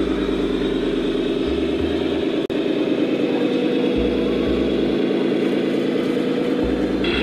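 Electronic sound module of a scale RC truck playing a diesel truck engine at idle. The sound is steady, with a brief dropout about two and a half seconds in.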